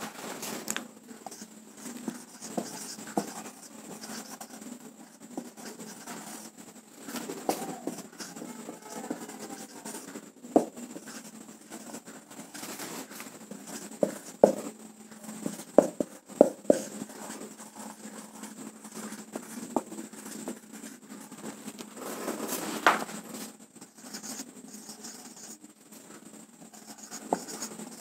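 Marker pen writing on a whiteboard: soft scratching strokes broken by light clicks and taps as the tip meets the board, with one louder scratch about 23 seconds in.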